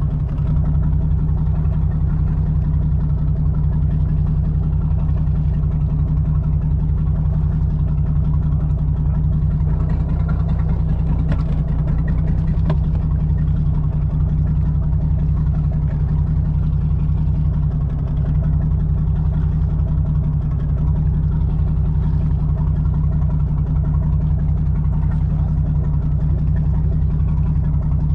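Charter boat's engine running steadily, a loud low hum with an even pitch.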